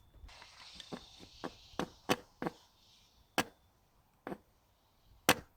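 A knife cutting the tip off a squeeze bottle of elastomeric crack filler: a series of sharp, irregularly spaced clicks as the blade works through the tip, with a soft hiss during the first half.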